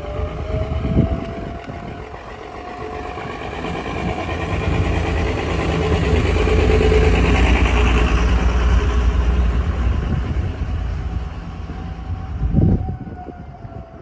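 A loud, rough-running truck engine rumbles past, building to a peak in the middle; the uploader calls it a dying truck. Behind it a Federal Signal 2001-130 outdoor warning siren sounds the attack signal, its pitch rising early on and falling near the end. Two sharp knocks come about a second in and near the end.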